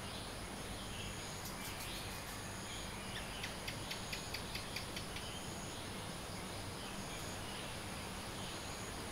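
Dawn chorus of scattered bird chirps over a steady, high insect trill. A quick run of about ten sharp clicks comes near the middle.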